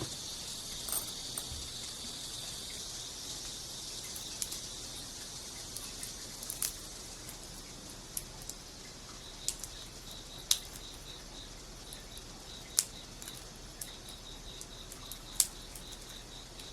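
Steady high-pitched insect chorus, crickets chirping in a quick pulsing rhythm, with a dozen or so sharp clicks scattered through it.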